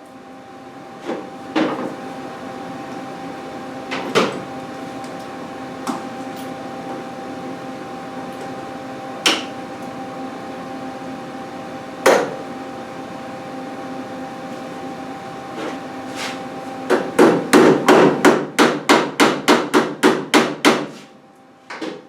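Hammer tapping on a sheet-metal patch panel as it is worked into place on a pickup cab roof: a few single strikes several seconds apart, then a quick run of about a dozen taps near the end. A steady hum runs underneath.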